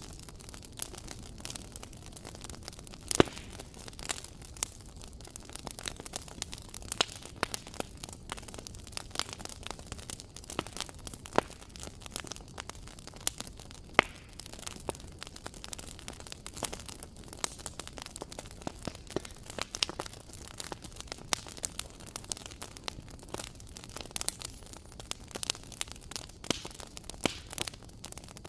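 Wood fire crackling in a fireplace: irregular sharp pops and snaps over a steady low hiss, with louder pops about three seconds in and again near the middle.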